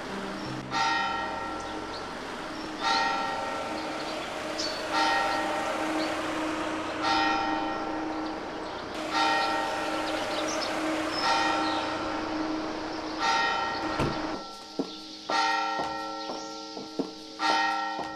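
A church bell tolling, one strike about every two seconds, each stroke ringing on into the next. In the last few seconds, sharp clicking steps of high heels on a tiled floor come in between the strokes.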